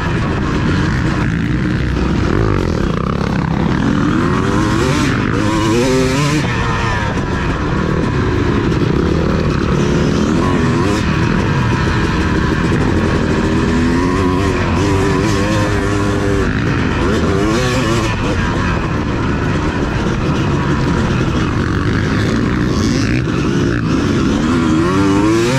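Motocross dirt bike engine revving hard, its pitch repeatedly climbing and dropping every few seconds as it accelerates and backs off around the track.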